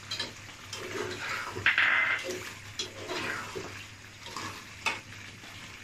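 A spatula stirring thick beef curry in a pot: wet sloshing and scraping against the pan, with a louder scrape about two seconds in.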